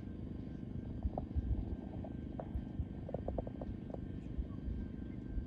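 Steady low outdoor rumble, with a few dull thumps and several short, faint chirp-like notes.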